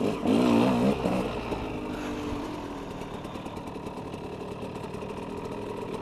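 KTM 200 two-stroke dirt bike engine revving briefly about a second in, then settling to a steady idle.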